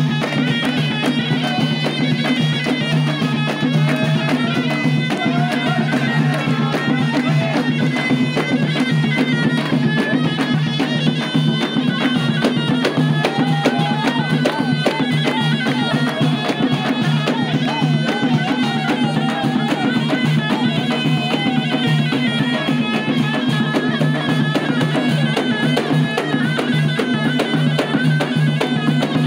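Live traditional folk music: frame drums and a larger drum beating steadily, with a wavering melody from a loud wind instrument over a steady low drone.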